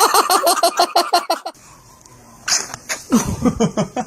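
A child giggling in quick, rapid bursts, then a short sneeze about two and a half seconds in, followed by more laughter that falls in pitch.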